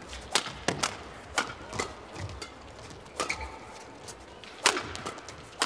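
Badminton rackets striking the shuttlecock during a fast doubles rally: a string of sharp smacks at uneven spacing, some in quick succession, with a faint arena hum underneath.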